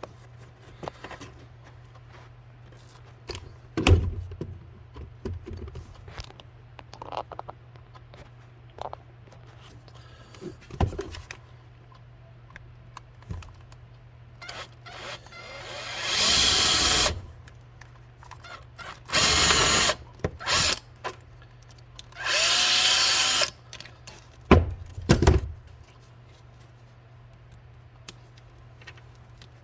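Electric drill boring through metal in three short runs of a second or two each, the first spinning up and the last dropping in pitch as it stops. Scattered knocks from handling fall between the runs.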